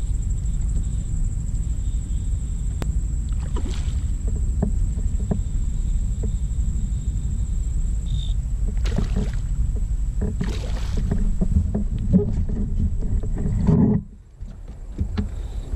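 Wind buffeting an action-camera microphone as a low, steady rumble, with a thin steady high whine and scattered small knocks and brief hissy noises from the kayak and water; the sound drops away abruptly about fourteen seconds in.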